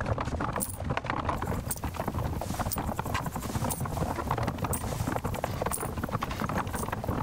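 Horse hooves clip-clopping steadily at a walk, many quick irregular knocks over a steady low noise.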